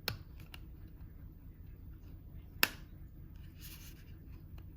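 A few light clicks and taps of a small plastic table clock and its packaging being handled, with one sharp click about two and a half seconds in and a brief soft rustle after it.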